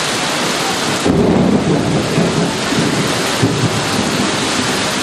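Heavy rain falling steadily. About a second in, a rumble of thunder breaks in and rolls for two to three seconds before fading back into the rain.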